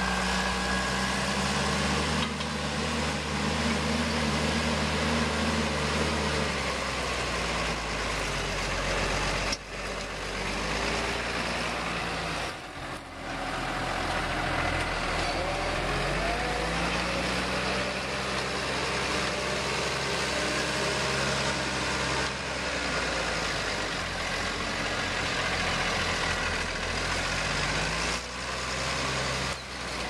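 Diesel engines of a John Deere and a New Holland tractor pulling reversible ploughs through stubble. The engine note is steady but shifts in pitch several times as the load and the distance change, over the rush of wind on the microphone.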